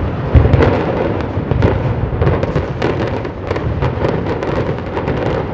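Explosive demolition charges firing in sequence through a high-rise hotel tower during its implosion: a long string of sharp cracks in quick succession over a low rumble, the loudest about half a second in.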